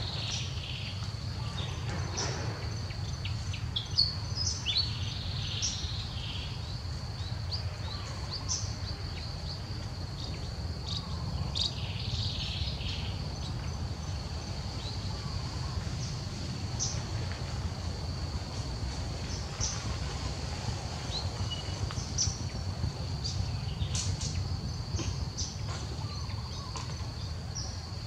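Outdoor ambience: a steady high-pitched insect drone, with short bird chirps scattered through it over a low steady rumble.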